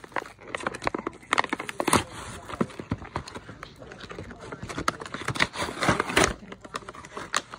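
Cardboard-and-plastic blister packaging of a toy pack being torn open: crinkling and ripping in quick bursts, with the loudest rips about two seconds in and again near six seconds.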